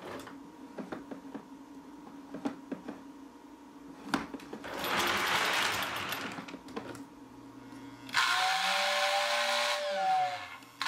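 Lionel postwar 2020 steam turbine locomotive running on three-rail O-gauge track: its electric motor whirs, louder as it passes close by, with a steady hum underneath and the light clicking of wheels over the rails. From about eight seconds in, the whistle in the 1447WS set's tender blows, its pitch rising and then falling as the whistle motor spins up and slows, and it starts again briefly right at the end.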